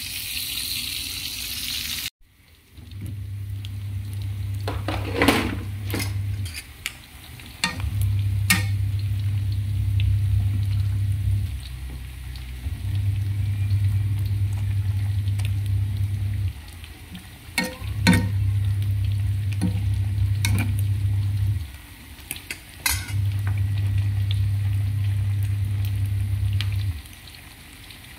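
Stovetop cooking: a hissing frying sizzle for about two seconds that cuts off abruptly. Then a low hum comes and goes in stretches of about four seconds, with a few sharp clinks as a ladle stirs vegetable soup in a wok.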